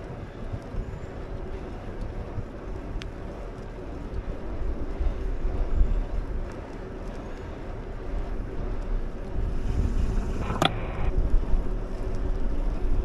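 Wind buffeting the microphone and a low rumble from riding along a paved path, with a sharp click about ten and a half seconds in.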